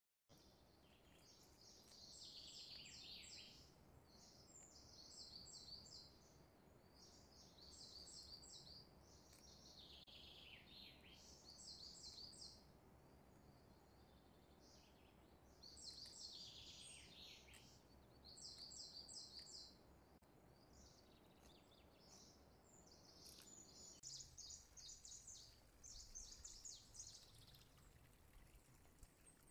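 Faint birdsong: a bird singing short, high, trilled phrases, some ending in falling notes, every couple of seconds, over a steady low background noise.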